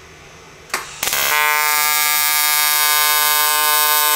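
TIG welding arc on an aluminium intake tube: a steady electric buzz that starts a little over a second in, after a click, as a spot of weld is laid down to build up material for a threaded sensor port.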